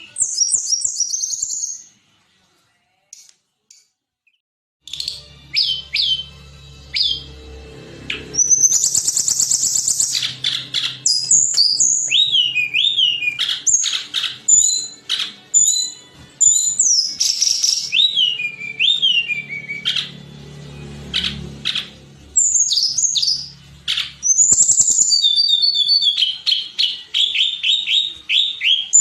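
Tledekan gunung singing: a rapid run of high whistled phrases and trills, some sliding down in pitch. There is a pause of about three seconds shortly after the start, and a faint low hum beneath the song through much of the middle.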